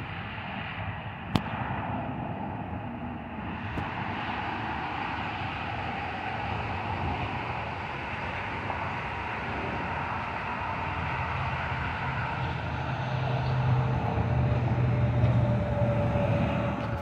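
Aircraft engine noise: a steady rumble that grows louder over the last few seconds.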